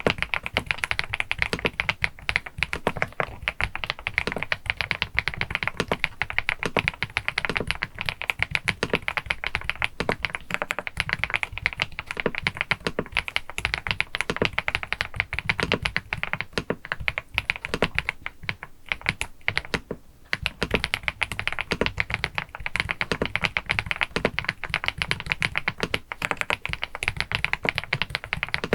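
Continuous fast typing on an EPOMAKER TH99 PRO mechanical keyboard, a dense run of keystrokes with a rolling, pebble-like clack. The typing thins briefly about two-thirds of the way through.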